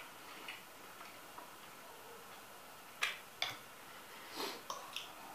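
Quiet eating sounds: a few short, sharp mouth clicks and smacks, two about three seconds in and a small cluster near the end.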